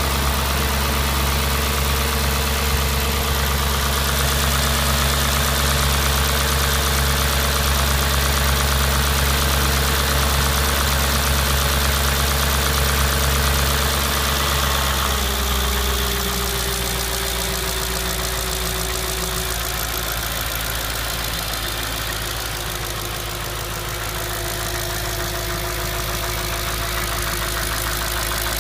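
Audi S4 B6's 4.2-litre V8 idling steadily. About halfway through the note drops a little in pitch and gets slightly quieter, settling to a lower idle.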